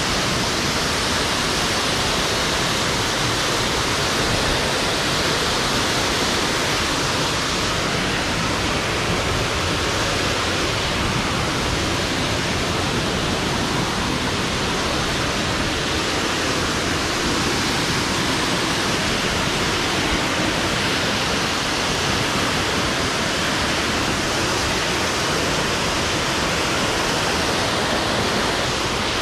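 Waterfall: a steady rushing of falling water.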